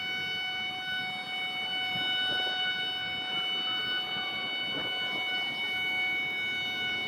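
A steady horn-like tone held unbroken, over a rough background noise.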